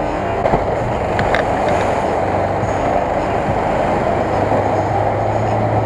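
Lada Niva engine running steadily under load as the 4x4 churns through a water-filled mud pit, with the rushing noise of its tyres throwing mud and water.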